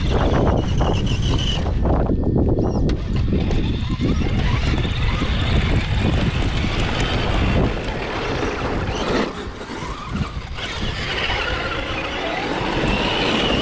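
A 1/10 scale RC crawler driving over dirt, heard from a camera riding on its body. The chassis and tyres make a heavy rumble, and the electric motor and gears whine, rising and falling with the throttle. The rumble drops away about eight seconds in.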